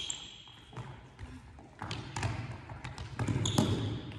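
A football being kicked and bouncing on the floor of a large indoor sports hall: several separate sharp thuds that ring on in the hall. A short high squeak comes at the start and again about three and a half seconds in.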